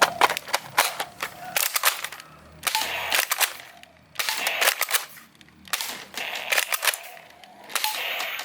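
Toy M16 rifle firing in five short bursts of rapid shots, each about a second long, with brief pauses between them.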